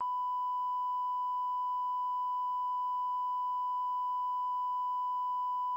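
Steady 1 kHz line-up test tone accompanying colour bars at the head of a video tape: one unbroken pure pitch.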